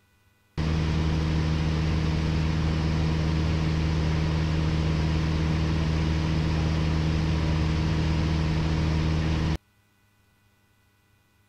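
Steady drone of a light aircraft's piston engine heard through a headset microphone channel, switching on abruptly about half a second in and cutting off abruptly about nine seconds later, as the microphone channel opens and closes.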